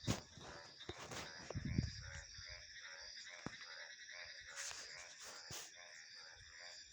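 A chorus of frogs croaking in quick, repeated pulses over a steady high trilling of insects, with a few sharp clicks and a brief low rumble about a second and a half in.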